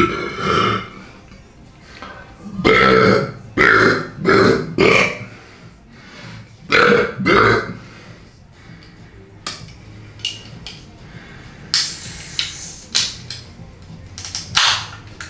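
A string of loud belches, about seven in the first eight seconds, several of them short and in quick succession, over music. Shorter, sharper sounds follow in the second half.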